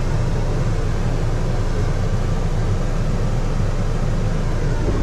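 Dometic rooftop RV air conditioner running in cooling mode, heard from inside the cabin: a steady, loud low rumble of fan and compressor with an even hiss of moving air. The unit is running on its newly installed SoftStartRV soft starter.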